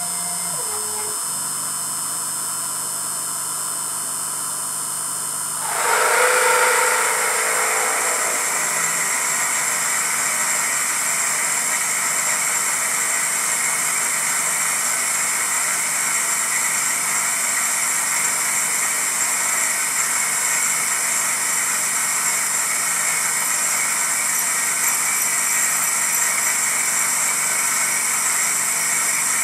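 Emco F1 CNC milling machine's spindle running with a steady whine, then about six seconds in a 6.1 mm drill bites into the cast iron backplate and a louder, steady cutting noise takes over as it drills through.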